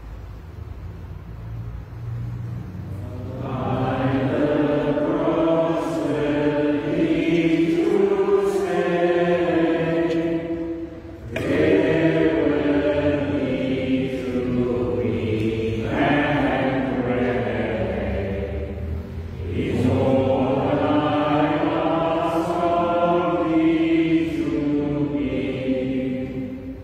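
Slow, chant-like hymn singing in three long sung phrases, the kind of short hymn verse sung between Stations of the Cross.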